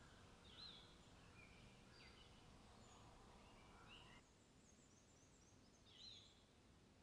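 Faint birds chirping in short rising and falling calls over a quiet outdoor ambience, with a brief run of higher, quicker chirps about five seconds in. The background hush drops slightly about four seconds in.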